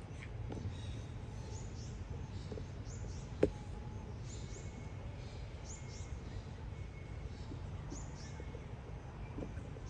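Small birds chirping in the trees: short, high, falling notes repeated every second or so over a low steady rumble. A single sharp click about three and a half seconds in stands out as the loudest sound.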